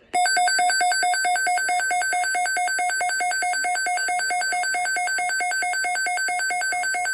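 Weather alert radio's built-in electronic alarm sounding for an incoming alert: a two-pitch tone pulsing rapidly and evenly, several beeps a second, which stops abruptly near the end.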